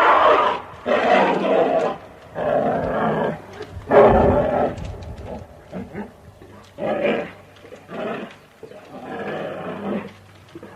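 Bear growling and roaring in about six separate bursts, each under a second long, with short pauses between them; the loudest comes about four seconds in.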